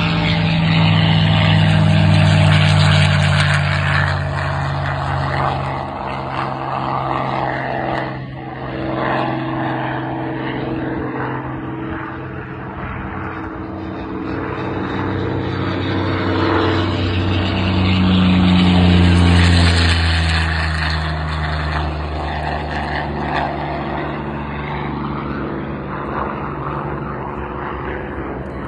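Propeller fighter aircraft flying overhead: a steady engine drone that swells twice, loudest a couple of seconds in and again about two-thirds of the way through.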